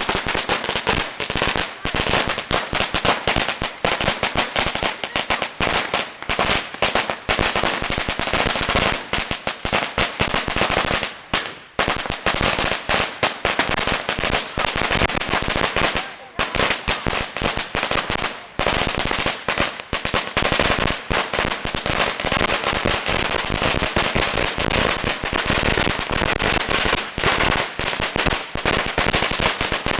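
A 10,000-round firecracker string going off in a continuous, rapid crackle of bangs, loud throughout, with a few brief lulls partway through.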